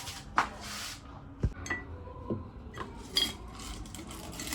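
Coffee capsules and a storage container being handled, giving about five separate clinks and knocks of small hard objects against the container, some of them with a short ringing tone.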